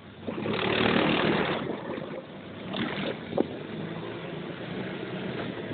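Polaris Ranger utility vehicle's engine running as it drives through grass. The engine gets louder for about a second soon after the start, and there is one short click a few seconds in.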